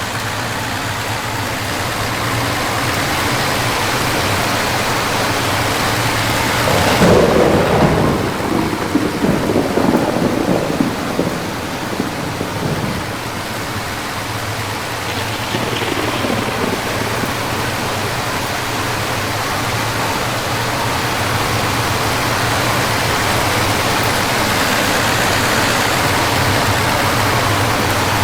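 Heavy rain of a thunderstorm hissing steadily and growing slowly heavier, over a low steady hum. About seven seconds in, a rumble of thunder rolls for several seconds.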